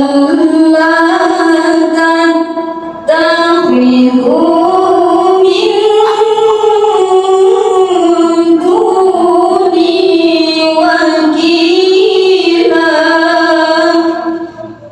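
A young female qari'ah chanting Quran recitation (tilawah) into a microphone, amplified over loudspeakers, in long held, ornamented melodic notes. There is a short break for breath about three seconds in, and the phrase ends shortly before the end.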